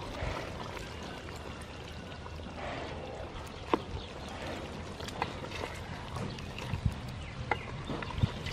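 Coconut milk pouring from a bowl into a pot of simmering chicken curry at the start, then a wooden spoon stirring the curry, with several sharp knocks of the spoon against the metal pot.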